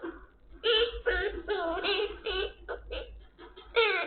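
Quaker parrot singing lines of an old Korean pop song in a mimicked human voice: one sung phrase starting about half a second in, a few short sounds, then another phrase near the end.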